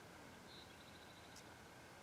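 Near silence, with a faint, high, rapidly repeated chirping call from a small bird starting about half a second in, then a soft click.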